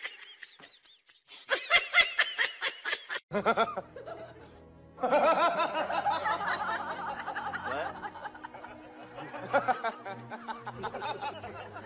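A person laughing in a quick run of short pulses, over background music.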